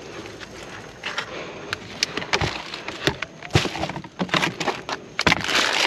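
Groceries and plastic baskets being handled in a car's cargo area: scattered knocks and clatters, with the rustle of plastic-wrapped food and a longer rustling burst about five seconds in.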